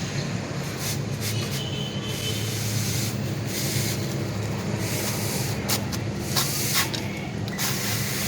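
Steel trowel scraping and smoothing wet cement mortar to shape a decorative plaster moulding, in irregular short strokes, over a steady low hum.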